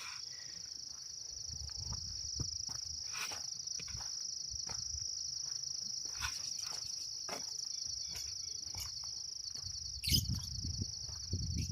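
Insects trilling steadily, a continuous high, rapidly pulsing chorus. A few faint clicks run through it, and a low rumble comes in about ten seconds in.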